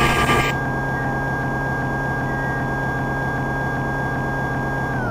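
Simulated CNC milling-machine spindle sound from the SSCNC simulator software: a steady whine over a low hum, with a hiss in the first half second. Near the end the whine slides down in pitch as the spindle spins down.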